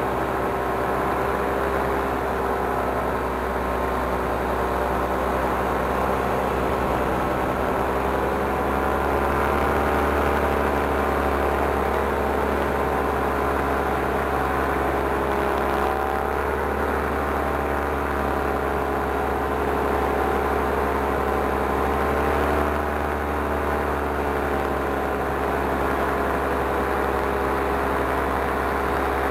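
Paramotor engine and propeller running steadily in flight, the pitch rising and falling slightly as the throttle changes.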